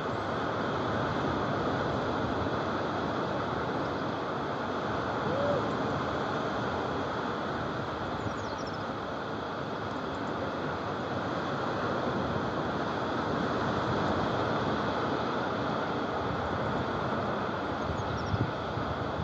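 Steady wash of small waves breaking on the sandy shore, mixed with wind on the phone's microphone.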